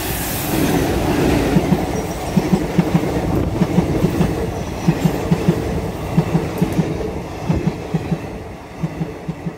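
A passing train: a steady rumble with its wheels clacking over the rail joints in quick groups of three or four, about once a second.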